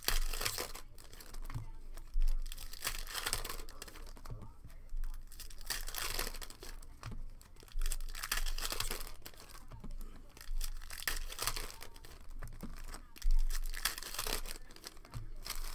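Foil trading-card pack wrappers being torn open and crinkled by hand, in irregular bursts of rustling and tearing.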